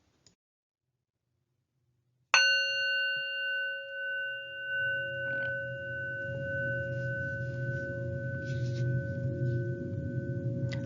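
About two seconds in, a meditation bell is struck once and rings on steadily with several clear overtones. A low hum builds beneath it.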